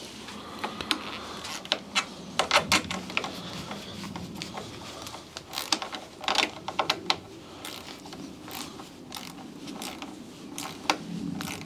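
Hand tools tightening the mounting screws and nuts of a trailer-hitch electrical socket: irregular clusters of sharp metal clicks and clinks, several times.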